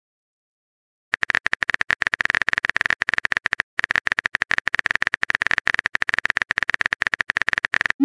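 Simulated phone-keyboard typing sound effect: a fast run of crisp key clicks, about ten a second, starting about a second in with a short break midway. It plays while the next chat message is being typed out.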